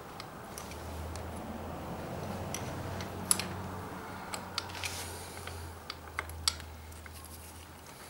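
Small irregular metal clicks and taps as new brake pads and a retaining pin are worked into a Suzuki DR650's rear brake caliper, the sharpest about three seconds in, over a faint steady low hum.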